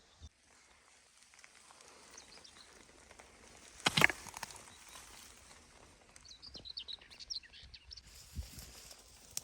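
Small birds chirping, a run of short high chirps about six to seven and a half seconds in, over a quiet natural background. About four seconds in comes a single sharp, loud noise, the loudest thing here.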